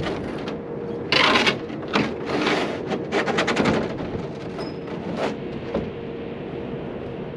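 Scraping and clattering of hands and tools working on the loader's cab roof, with a quick run of sharp clicks about three seconds in, over a steady hum.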